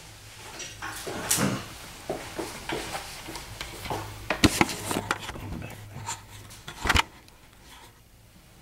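Clatter of things being handled: a run of short knocks, clicks and rubbing, with a sharp knock about seven seconds in, then it goes quiet.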